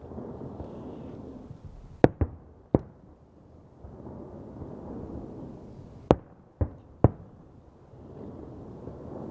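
Fireworks going off: sharp firecracker bangs in two groups of three, one group about two seconds in and another around six to seven seconds in, between swells of low rumbling noise.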